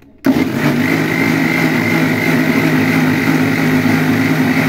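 Electric mixer-grinder switched on just after the start, its motor then running steadily with a high whine while blending avocado juice in the steel jar.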